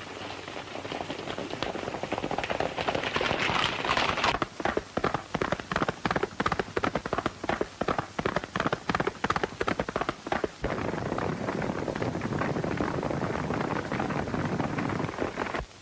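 Several horses galloping: a dense patter of hooves that builds over the first few seconds. A run of sharp, separate cracks fills the middle, then a steady patter follows and cuts off suddenly near the end.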